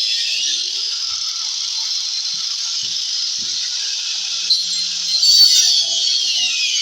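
Electric grinder cutting into a wooden subwoofer box: a steady high-pitched whine that wavers and dips in pitch near the end as the tool takes load, with a few light knocks.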